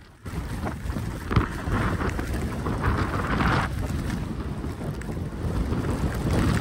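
Wind rushing over the microphone of a skier heading downhill, rising sharply about a quarter second in, with the skis sliding over the snow and a single knock about one and a half seconds in.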